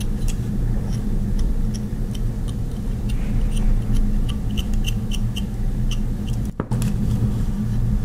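Steady low hum or rumble with small light ticks scattered irregularly through it; it cuts out briefly once, about two-thirds of the way through.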